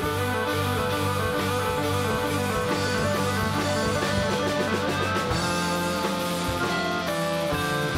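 Rock band playing an instrumental passage, led by an electric guitar with P-90 pickups picking single-note lines high on the neck, over drums and bass.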